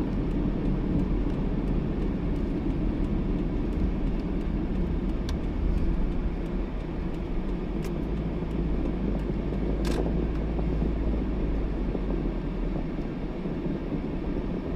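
Steady road and engine noise heard inside a moving car's cabin, with a single sharp click about ten seconds in.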